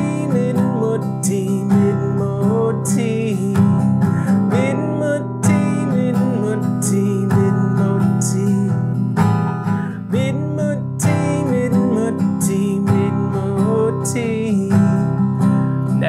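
Acoustic guitar strummed steadily, with a man singing a repetitive children's song in Mirning language over it.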